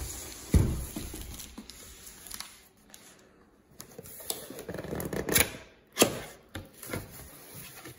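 Cardboard boxes being handled and opened: flaps scraping and rustling, with a heavy thump about half a second in and sharp knocks of boxes against the table a little after five and at six seconds.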